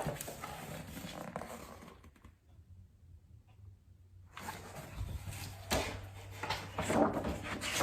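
Quiet rustling and soft knocks from a hardcover picture book being handled and its page turned, with a near-silent gap of about two seconds in the middle.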